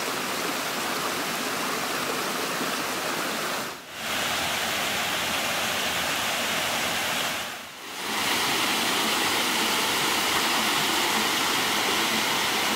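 Waterfall cascading over rock ledges into a pool: a steady rushing of falling water. It drops away briefly twice, about four and eight seconds in, and is a little louder in the last part.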